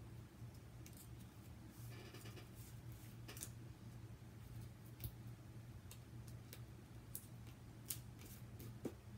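Faint scattered clicks and brief scratchy rustles of small paper pieces being handled and pressed onto a card front, over a low steady hum.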